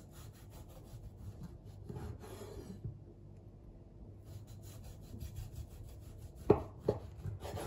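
Chef's knife sawing back and forth through a baked orange loaf cake, a soft rasping of blade on crust and crumb. About six and a half seconds in, the blade knocks twice on the wooden cutting board as slices come free.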